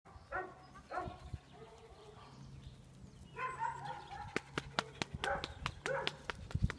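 Dogs giving short barks and yips, a couple in the first second and a longer run of them from about three and a half seconds in, with a series of sharp clicks in the second half.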